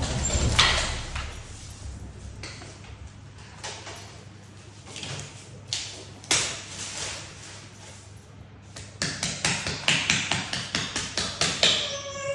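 Handling noise: rustling and tapping of cloth and packaging, with a fast run of crinkles near the end. A newborn's cry starts just as it ends.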